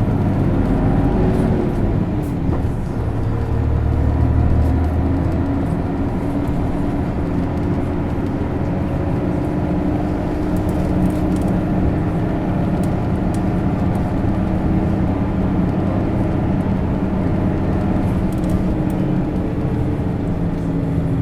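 Isuzu Erga city bus with a six-speed manual gearbox running under way, heard from inside the cabin: a steady diesel engine drone mixed with road and body noise. The engine note is deeper and stronger for the first few seconds, then holds steady.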